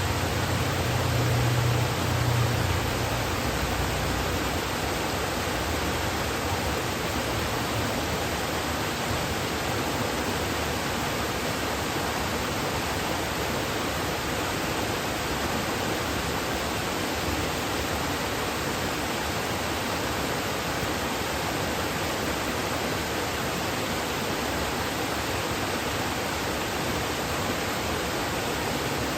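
Kuzuryu Falls waterfall pouring: a steady, even rush of falling water, with a deeper rumble swelling over the first three seconds.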